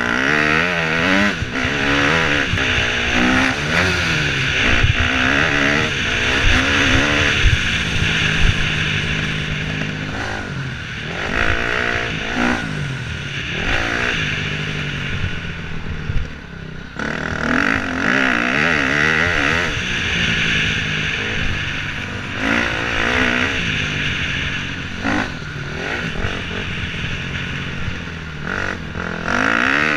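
KTM 250 dirt bike engine revving hard, its pitch climbing and falling again and again as the rider works the throttle through the gears, with wind rushing over the microphone. The engine drops off briefly about halfway through before pulling again.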